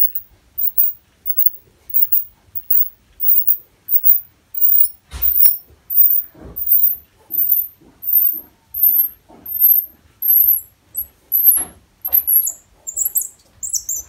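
Hand tap being turned with a T-handle tap wrench, cutting a thread into a lathe handle knob held in a vise: a thin, high squeak with each stroke, about one and a half a second, with a few sharp knocks along the way.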